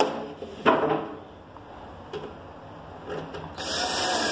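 Two wooden knocks as the particleboard bed panels are handled, then a cordless drill-driver starts driving a screw into the panel about three and a half seconds in and keeps running.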